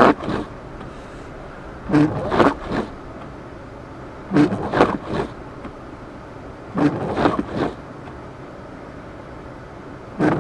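Car windshield wipers sweeping through the snow in a steady rhythm: a cluster of scraping thumps about every two and a half seconds, over a steady hum of engine and road noise.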